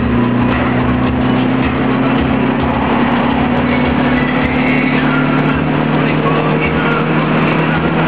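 Opel Manta's four-cylinder engine running steadily at cruise, heard inside the cabin, its drone holding an even pitch over road and wind noise.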